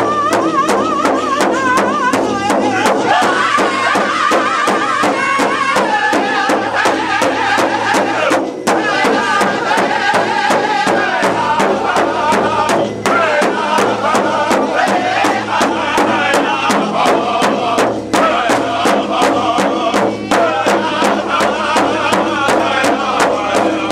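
Powwow drum group: several singers strike one large rawhide hand drum in a steady, even unison beat while singing together in high, wavering voices, with brief breaks in the song now and then.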